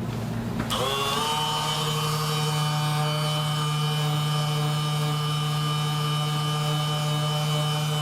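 A small electric motor starts up with a brief rise in pitch about a second in, then hums steadily at one pitch.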